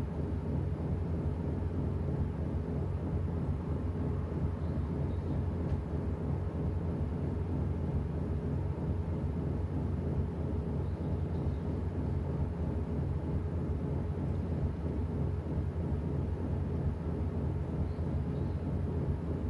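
Washing machine running with a steady, even low hum.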